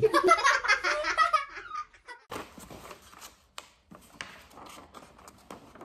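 Children laughing and squealing for about a second and a half, then quieter scattered clicks and rustling.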